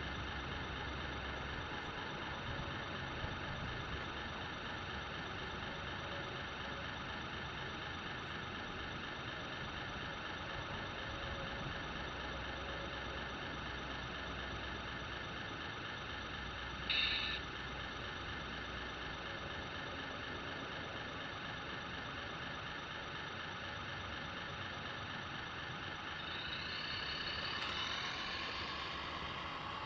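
Radio-controlled model heavy-haul tractor unit running with a steady mechanical hum and high whine, with a short hiss about 17 seconds in. Near the end the whine rises in pitch as the tractor pulls away with the uncoupled gooseneck.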